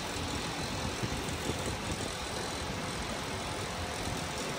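Steady running noise of an open-sided tour tram, heard from on board as it rolls along.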